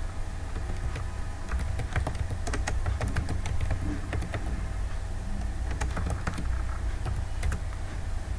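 Keyboard keys clicking in quick runs as a terminal command is typed, over a steady low hum.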